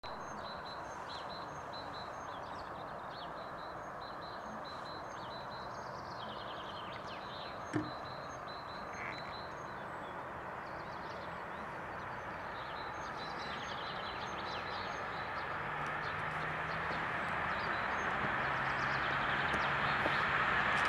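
Small birds chirping again and again over a steady outdoor hiss, with one sharp click about eight seconds in. Over the last several seconds the rolling noise of an approaching electric freight train, a Class 193 Vectron locomotive hauling container wagons, grows steadily louder, with a low hum joining in.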